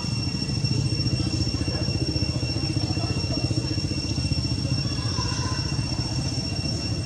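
A small engine idling steadily, with a fast, even low pulse, and a steady high-pitched whine above it.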